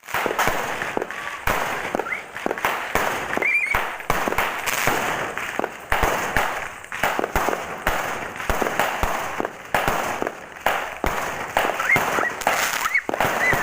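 Fireworks and firecrackers going off in rapid, irregular succession: a dense run of sharp bangs over continuous crackling.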